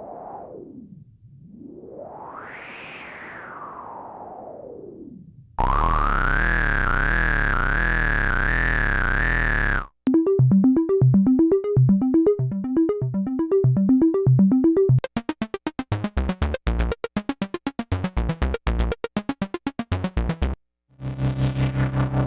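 Moog Subsequent 37 analog synthesizer. A single tone glides down and up in pitch several times, then a loud buzzy held note wavers slowly from about five seconds in. It breaks into a fast run of short repeated notes, then rapid clicking staccato pulses, and near the end a new held note starts.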